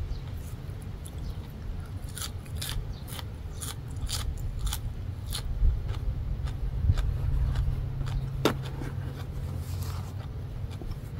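Close-up chewing of raw coriander sprigs and green papaya salad: a run of crisp crunches, thickest in the first half, then sparser. A low steady rumble lies underneath.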